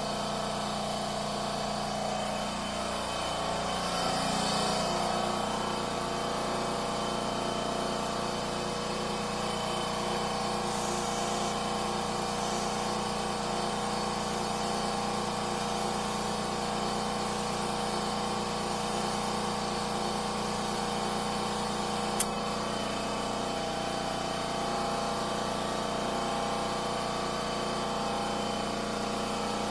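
Air compressor running steadily with a constant hum while tires are topped up with air. There is a short hiss about four seconds in, and a single sharp click about 22 seconds in.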